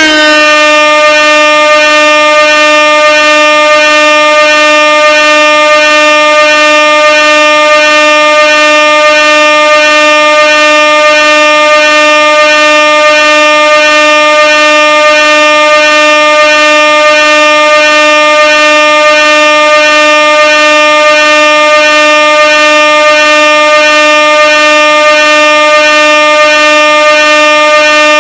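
Air horn sounding one continuous, loud, steady blast at a single pitch, its pitch settling slightly downward as it starts.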